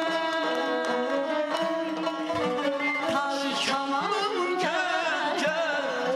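Live Azerbaijani mugham music: tar and kamancha playing an ornamented melody over steady gaval frame-drum strokes.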